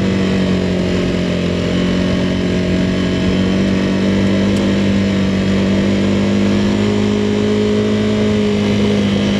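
Motorcycle engine running at steady revs while riding off-road, one even droning note.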